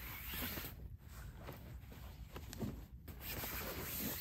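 Rustling and scuffing as camping gear is handled and packed away, coming in uneven patches with a few faint knocks.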